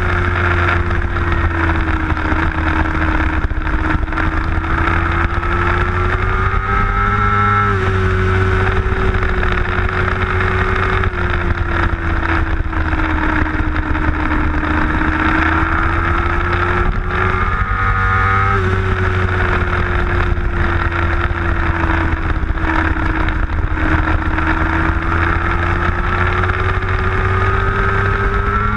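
Middleweight superbike engine heard onboard at race speed under heavy wind rush. The engine note sags with the throttle closed through braking and a corner, with two abrupt changes in pitch about 8 and 18 seconds in, then climbs as the throttle opens near the end.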